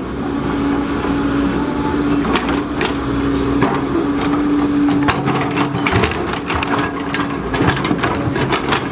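Volvo EC210DL excavator working: engine and hydraulics running with a steady whine that drops away about seven seconds in, over repeated clanks and knocks that come thickest in the second half.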